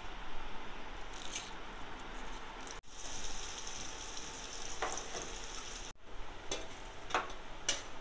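Sliced onions frying in hot oil in a kadai, sizzling steadily, with a few short scrapes of a spatula against the pan in the second half.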